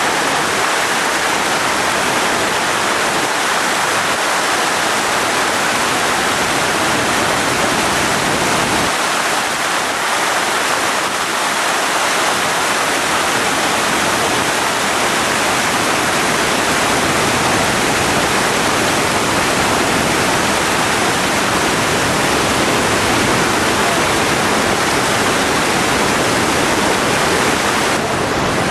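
Waterfall in flood: a steady, loud rush of heavy water pouring over rocks into churning rapids, growing deeper and fuller about nine seconds in.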